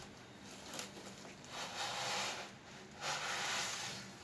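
Foam-wrapped laptop sliding out of its cardboard box, the foam rubbing against the cardboard in two rustling swishes about a second each.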